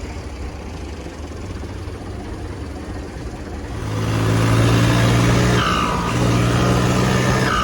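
Turbocharged diesel engine of a New Holland 3630 tractor running, growing louder about four seconds in.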